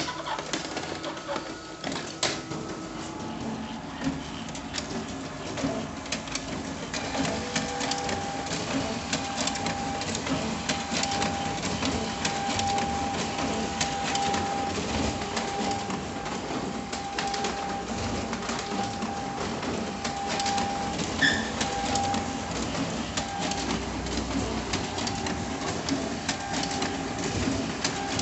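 Xerox WorkCentre 232 copier running with its front door open: a continuous mechanical whir dense with quick clicks and rattles, with a thin steady whine joining in about seven seconds in.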